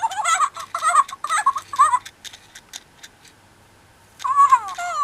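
WowWee Fingerlings sloth toy chirping and babbling in a high, squeaky baby-animal voice through its small speaker, in response to its head sensors being touched. In the middle there is a run of light, evenly spaced clicks, and near the end a falling chirp.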